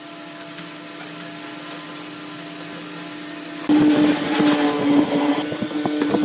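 Electric woodworking power tool running with a steady hum, then cutting into wood about two-thirds in, much louder with a dense crackle over the motor's tone.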